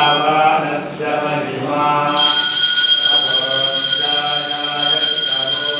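Devotional chanting by male voices during the ritual bathing of a temple idol. About two seconds in, a steady high-pitched electric ringing joins and keeps going under the chant.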